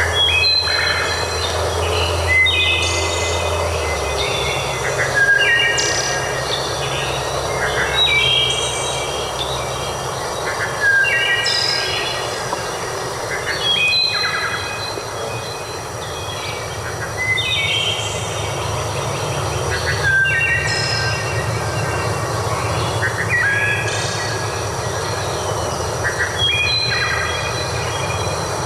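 Songbirds singing short repeated phrases of stepped whistled notes, a phrase every two or three seconds, over a steady low rumbling background noise.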